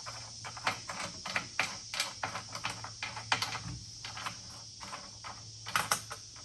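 Irregular light clicks and taps, several a second, of bracket hardware being handled and fitted on a roof rack platform, over a steady high chirring of insects.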